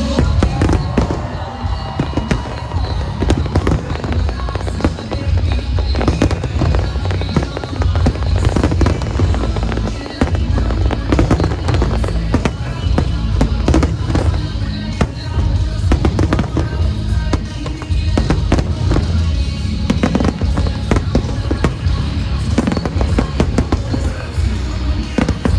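Aerial fireworks going off continuously in rapid, overlapping bursts and crackles, set to loud music in a pyromusical show.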